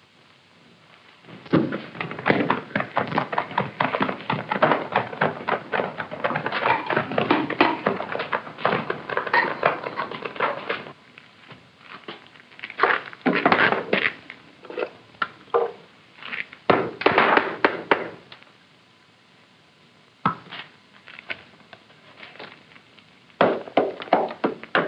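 Hammer knocking moulding sand off a freshly cast brass seven-armed candlestick in its sand mould: a long run of rapid knocks and rattles, then shorter bursts with pauses, and evenly spaced blows near the end as the casting is broken out of the sand.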